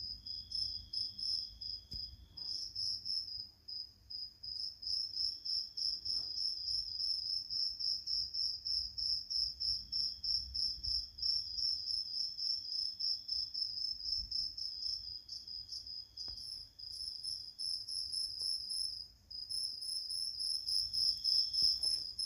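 Mastech digital multimeter's continuity buzzer sounding a high, rapidly pulsing beep as the probes rest on a capacitor in the phone board's power section, breaking off briefly twice. The beep with a 000 reading marks a short to ground: a shorted capacitor on the secondary line.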